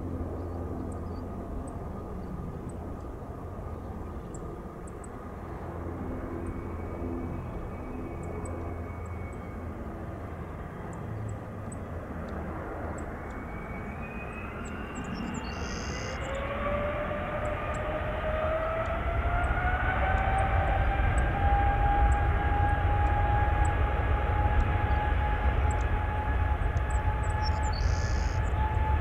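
Boeing 777-300ER's GE90-115B turbofan engines running at idle, then spooling up for takeoff about halfway through: a whine that rises in pitch and loudness, then holds steady at high power.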